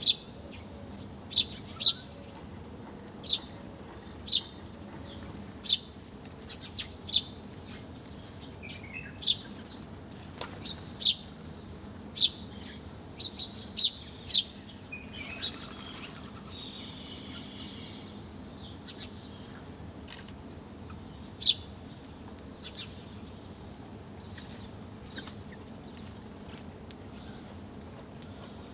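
Small birds chirping: short, sharp chirps come at irregular intervals, many in the first half and only a few later on. A short warbling phrase is heard about halfway through, over a steady low background noise.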